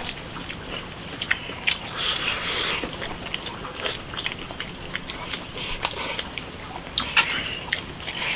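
People eating a meal: irregular sharp clicks of chopsticks and tableware against bowls, with chewing and biting noises in between.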